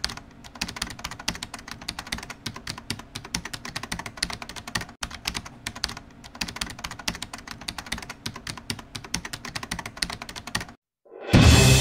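Rapid keyboard typing, a dense run of clicks used as a sound effect, stopping about eleven seconds in. Music starts right after.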